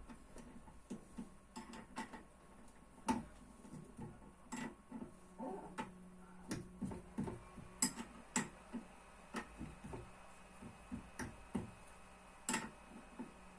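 Irregular light clicks and knocks, a few sharper than the rest, from hands-on work on a skateboard's wheels and bearings.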